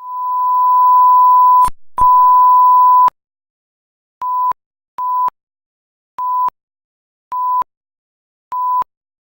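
A steady mid-pitched electronic beep tone: a long tone of nearly two seconds, a sharp click, a second tone of about a second, then five short beeps at uneven intervals.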